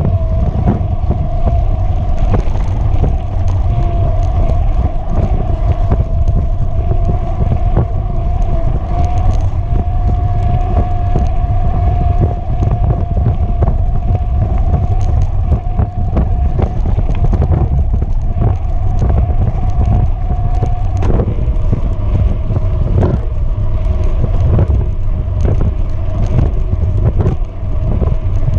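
Electric mountain bike riding a dirt trail: heavy wind rumble on the microphone under a steady whine that wavers a little with speed, with small knocks and rattles from the rough ground.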